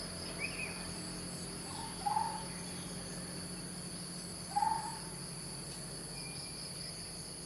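A bird giving a short call twice, about two and a half seconds apart, with a higher short note near the start, over a steady chorus of insects.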